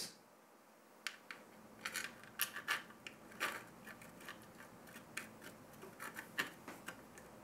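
Light, irregular clicks and taps of a metal CPU-block backplate and its screws being handled and fitted into place behind the motherboard.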